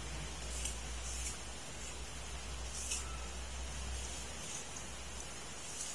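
Baby monkeys eating apple slices: five or so short, soft crunching and rustling sounds over a steady low hum and hiss.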